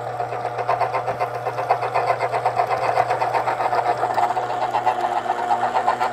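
Cuisinart CCJ-500 electric citrus juicer's motor running, its reamer spinning under a citrus half pressed down onto it: a steady motor hum with a fast, even pulse.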